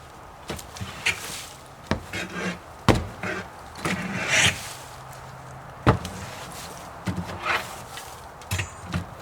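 Irregular sharp knocks of wood, about eight of them, mixed with short rustling scrapes in between.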